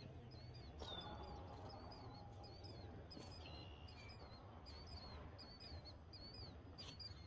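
Faint bird calls: a short high chirp repeated about twice a second over a quiet outdoor background.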